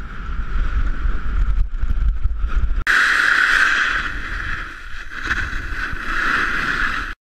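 Snowboard sliding and scraping over packed, crusty snow with wind rushing on the camera's microphone; about three seconds in the hiss jumps sharply louder as the board carves into a turn and sprays snow, easing and swelling again near the end.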